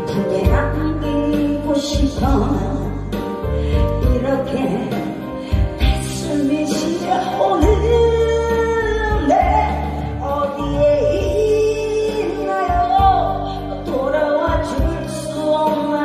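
A woman singing into a microphone over a loud backing track with a strong bass line.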